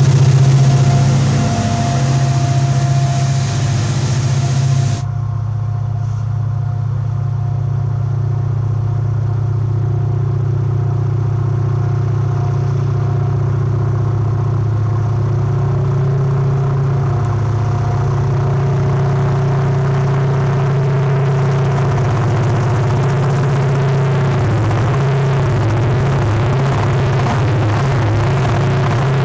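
Diesel-electric locomotives hauling a loaded coal train, their engines running under power as a deep, steady drone. At first it comes with a hiss of wheels on rail. About five seconds in the sound changes abruptly to the engines alone, and near the end the drone wavers as the locomotives pass.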